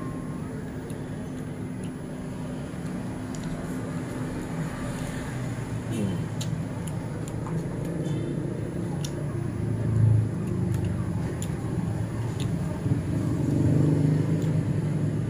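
Low rumble of road traffic from passing vehicles, swelling about ten seconds in and again near the end, with a few faint clicks.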